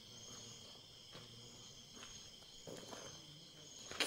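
Night-time chorus of crickets, a steady high-pitched trill, with a sharp click near the end.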